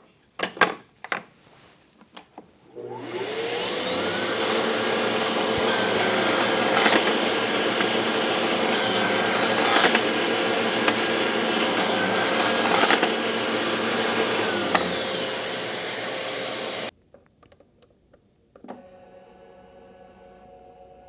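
A few knocks of wood and tool handling, then the Festool CSC SYS 50 cordless table saw's motor spins up and runs steadily while the blade crosscuts three times about three seconds apart, making repetitive cuts against a stop. The motor then winds down and stops.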